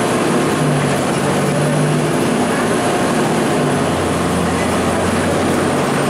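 Cabin sound of a 2002 Blue Bird CS transit bus under way: its Cummins ISC inline-six diesel runs steadily under the road and body noise.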